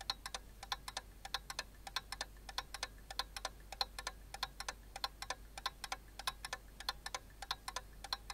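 Steady, rapid mechanical ticking, about four sharp ticks a second, over a faint low hum.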